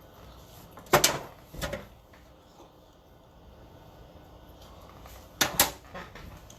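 Sharp knocks and clatters of tools or parts being handled on a workbench: one loud knock about a second in, a lighter one just after, and a quick double knock near the end.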